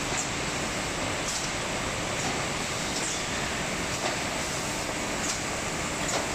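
Steady running noise of a PET bottle water line, from conveyor motors and packing machinery. Faint light clicks and knocks come roughly once a second.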